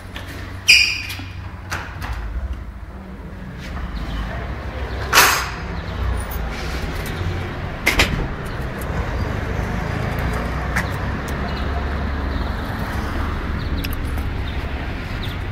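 A door clacks and squeaks briefly about a second in, then steady low street rumble of traffic. A few sharp knocks and a short hiss come through about five seconds in.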